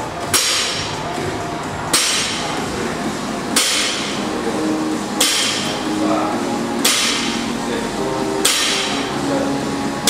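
Loaded barbell with bumper plates touching down on the gym floor at the bottom of each deadlift rep: a sharp clank about every second and a half, seven in a row.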